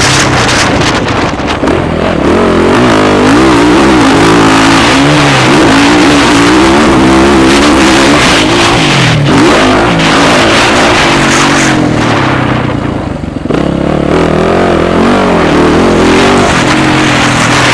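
Motocross bike engines revving up and falling back again and again as they are ridden hard, with a short lull about thirteen seconds in.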